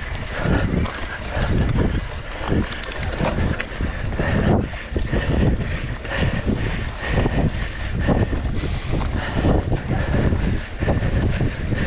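Wind buffeting the microphone over the continuous rumble and rattle of a mountain bike riding fast on a rough dirt forest trail, jolting irregularly over roots and bumps.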